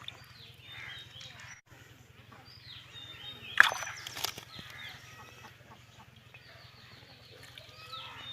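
Birds chirping and calling in short rising and falling notes over a steady low hum, with a sharp knock about three and a half seconds in and a second, weaker one shortly after.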